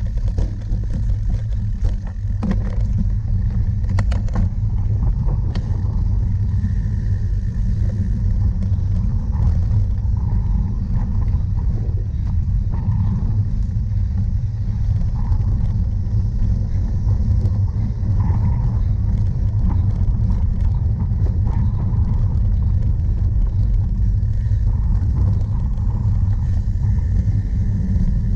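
Steady low rumble of wind buffeting and rough-ground vibration on a cyclocross bike rider's camera during a race, with a few sharp clicks in the first six seconds.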